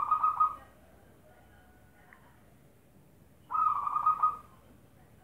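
Zebra dove (perkutut) cooing: two phrases of quick pulsed notes about a second long each, one ending just after the start and another about three and a half seconds in.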